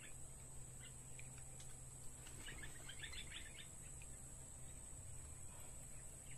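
Faint outdoor ambience: a quick run of small bird chirps about two and a half seconds in, over a steady high-pitched drone.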